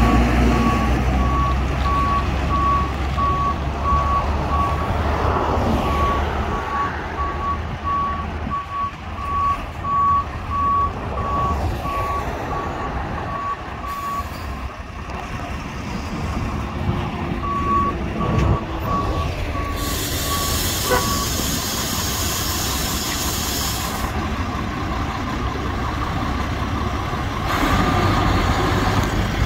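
Kenworth T360 tilt tray tow truck reversing, its reversing alarm giving a steady run of beeps over the diesel engine running. The beeping stops about halfway through, resumes briefly, then a loud hiss of air sounds for a few seconds.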